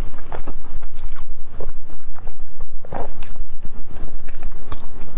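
Close-miked biting and chewing of a soft bread roll filled with mochi: a run of short, irregular mouth sounds over a steady low hum.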